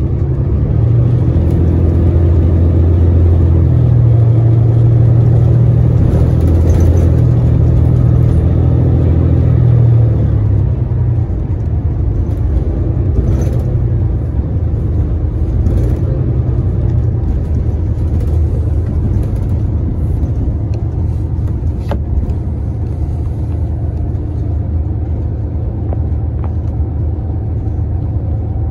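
Cabin noise aboard a New Flyer Xcelsior XDE60 diesel-electric hybrid articulated bus driving along: a low drivetrain hum over road rumble. The hum is strongest for the first ten seconds or so, then eases to a steadier, lower level.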